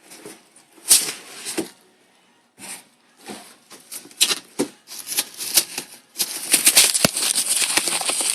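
Plastic packing material, such as bubble wrap, rustling and crinkling as it is pulled off a package. It comes in irregular bursts at first, then runs on more densely in the last couple of seconds, with a single knock about seven seconds in.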